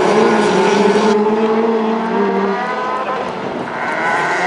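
Several autocross race car engines running hard together, their pitch climbing and dropping as the cars accelerate through the bends.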